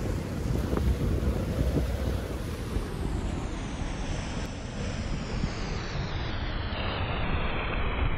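Surf breaking and washing against the boulders of a rock jetty, with strong wind buffeting the microphone. Near the end a wave splashes up over the rocks.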